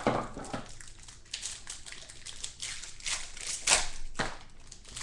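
Clear plastic wrapping crinkling and tearing as a sealed trading card pack is unwrapped by hand, in irregular crackles with a louder crackle near the end.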